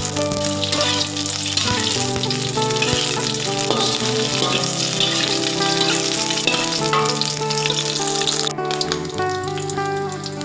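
Cubes of pork fat sizzling as they fry in oil in a wok, rendering out lard; the hiss thins abruptly about eight and a half seconds in.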